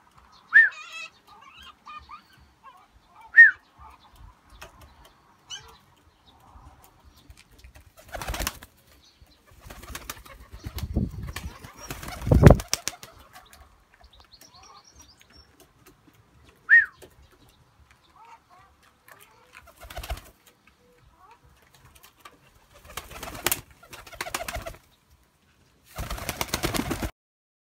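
Fantail pigeons flapping their wings in several separate bursts, the loudest about halfway through and a long run of quick flaps near the end as one flies up close. In between come a few short, high peeps from the young pigeons.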